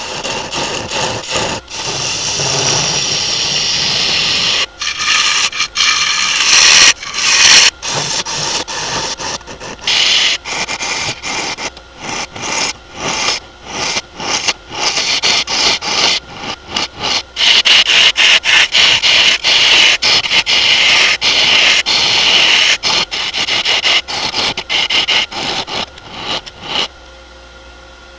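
A turning tool cutting into a wooden bowl spinning on a wood lathe, in many short, repeated cuts with brief gaps as the tool lifts off the wood. About a second before the end the cutting stops and only the lathe's quiet hum is left.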